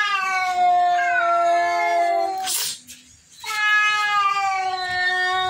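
Domestic cat yowling at another cat in two long, drawn-out calls, each slowly falling in pitch, with a short hiss between them. This is an aggressive warning-off among cats crowding the food.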